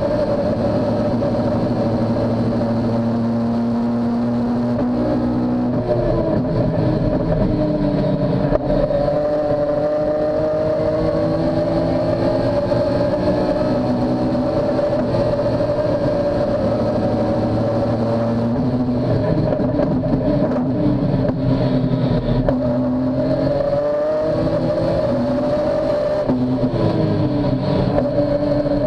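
Modified BMW S54 straight-six of a 1994 Super Touring race car, heard from inside the cabin under racing load. Its pitch falls and rises several times as the car slows for corners and accelerates out again.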